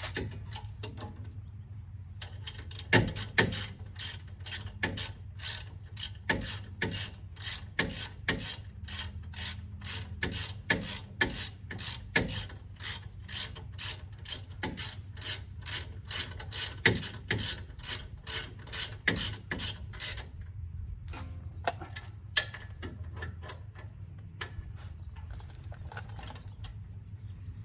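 Hand ratchet wrench clicking steadily, about two to three clicks a second, as a bolt is run in on the Jeep's rear brake and axle assembly; the clicking thins out to occasional clicks about twenty seconds in.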